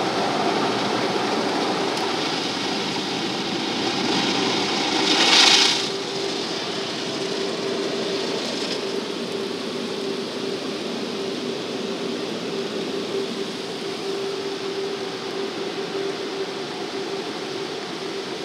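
Automatic car wash heard from inside the car: water spraying and running over the windscreen, with a steady machine hum. A louder hiss of spray swells about five seconds in and cuts off suddenly.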